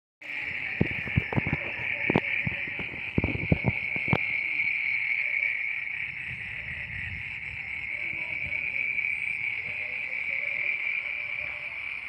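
A dense night chorus of crickets: one steady, high-pitched shrill without a break. During the first four seconds there is a scatter of sharp clicks and knocks over it.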